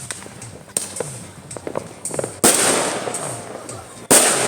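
Fireworks and firecrackers going off: a few small cracks, then a sudden loud bang about two and a half seconds in followed by dense crackling, and another loud bang near the end.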